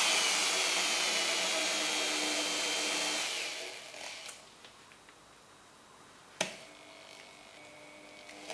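Electric drill running at speed while drilling holes in a wooden board, then winding down with a falling whine about three seconds in. A single sharp knock comes about six seconds in, and the drill starts up again near the end.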